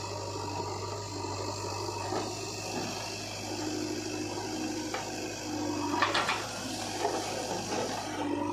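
JCB 3DX backhoe loader's diesel engine running under load with a steady low hum and a rushing hiss as its hydraulics work the loader arm. A short rattle comes about six seconds in, and near the end soil pours from the bucket into the trolley.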